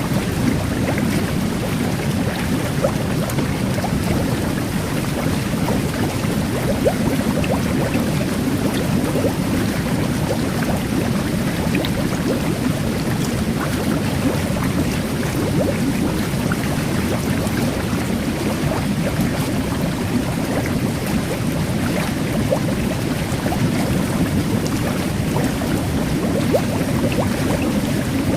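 Jet bath (whirlpool tub) jets churning water in a steady low rush, with fine bubbles fizzing over it in scattered tiny pops like carbonated water.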